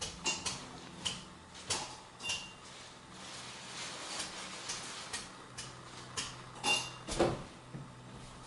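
Irregular sharp clicks and light knocks, about a dozen in all, a few carrying a brief high chirp, with a firmer knock a little past the middle. A faint low steady hum runs beneath.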